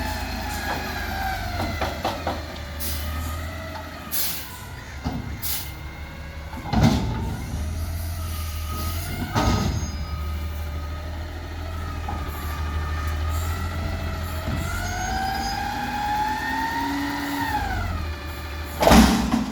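Peterbilt 320 front-loader garbage truck's diesel engine running and revving up and down, with a whine that slowly rises and falls with it. Sharp bangs come about seven and nine and a half seconds in, and a loud burst comes near the end.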